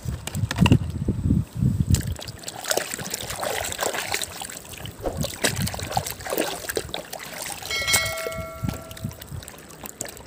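Dirty plastic toys being rinsed and handled in water: splashing and trickling with irregular clicks and knocks of plastic, and a brief pitched tone about eight seconds in.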